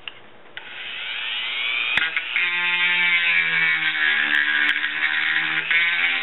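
A small rotary tool (Dremel-type) with a carbide bit spins up about half a second in, its whine rising in pitch. It then runs with a steady high whine as the bit grinds deep scratches out of the gelcoat surface of a fiberglass boat mold.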